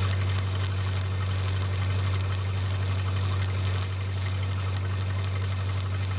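Stick welding with a 7018 rod: a steady crackling arc over the even drone of an engine-driven Lincoln SA-200 welder running under load.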